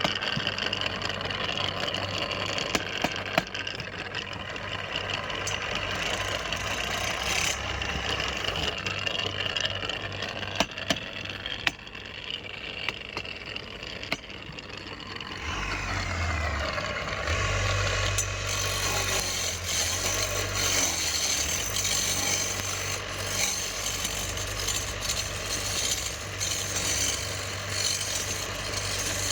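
Wood being worked by hand for a spade handle: scraping and rasping strokes with occasional sharp knocks. About halfway through a louder, steadier sound with a low hum takes over.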